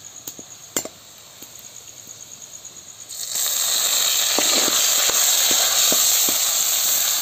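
Onions frying in oil in a steel kadhai, with a few spoon scrapes. About three seconds in, a loud sizzle starts suddenly as ground masala paste goes into the hot oil, and it holds steady with the spoon knocking against the pan.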